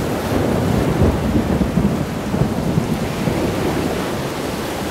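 Hurricane-force wind blowing in heavy gusts against the microphone, with driving rain and storm-surge waves washing over a seafront. The low wind rumble is loudest about a second into the gusts.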